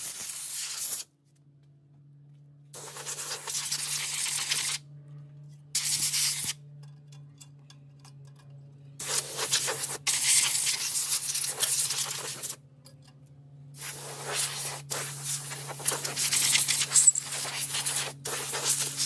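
Compressed air hissing from an air-compressor blow gun in repeated blasts, blowing dirt and grit off a lawnmower engine. The blasts last from under a second to about three seconds, with short pauses between them.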